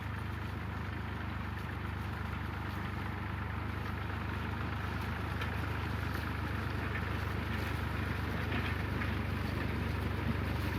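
Small Ferguson tractor's engine running steadily while pulling a rotary hay rake, a steady low hum that slowly grows louder.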